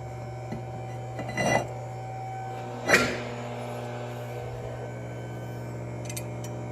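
Brake rotor being slid onto the wheel hub: a short metallic scrape about a second and a half in, then a single sharp metal clunk with a brief ring about three seconds in. A steady electrical hum runs underneath.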